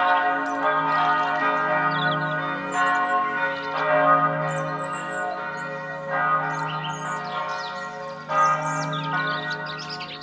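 Bells ringing, a new strike every one to two seconds, each ringing on over the last, with birds chirping above them. The sound slowly fades.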